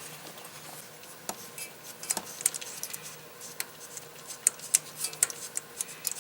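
Light, irregular metallic clicks and taps as a new spark plug is threaded in by hand with a spark plug socket on an extension.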